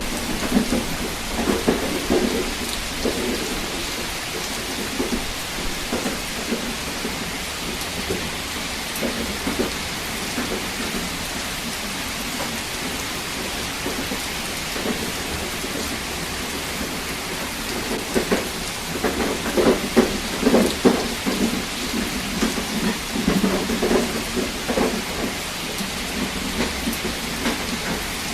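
Steady heavy rain hissing, with low rumbling swells near the start and again from about two-thirds of the way through.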